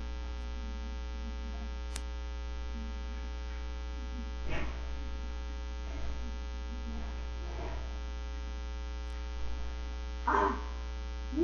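Steady electrical mains hum with a buzz of evenly spaced overtones, picked up by a computer microphone with its sensitivity boost switched on, broken by a few brief faint sounds.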